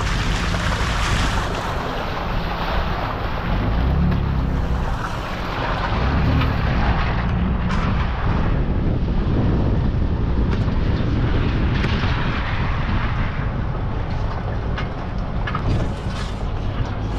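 Wind buffeting an exterior microphone over the low rumble of a Toyota Tundra pickup crawling along a dirt trail, with its tyres through a muddy puddle at the start.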